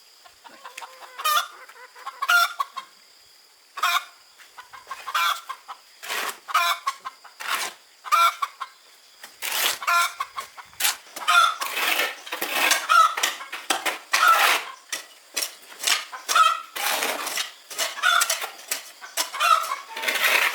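Chickens clucking: short repeated calls from several birds, getting busier about halfway through.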